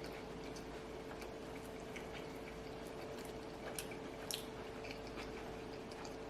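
A person chewing a mouthful of cheeseburger, with faint wet mouth clicks and smacks scattered through it, over a steady hum.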